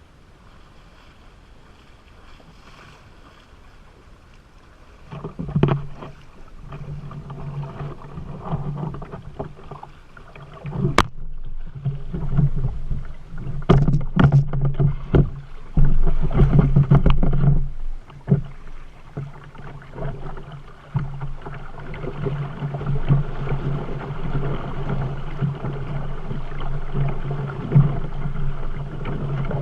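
Boat on the river: a steady low drone sets in about five seconds in and runs on, with a scatter of sharp knocks in the middle of the stretch.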